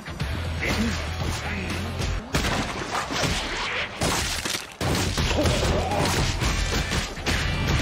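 Dramatic background music with punch and impact sound effects: sharp hits and crashes over a steady low bass, with abrupt cuts near the middle.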